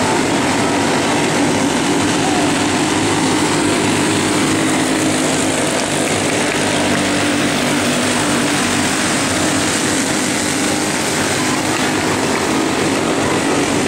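Box stock racing kart engines running at race speed, a loud, steady drone that never breaks.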